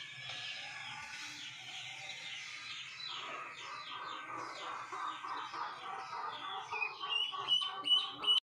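Duckling peeping: a fast, continuous run of short, high, falling peeps that grow louder and sharper near the end, then cut off suddenly.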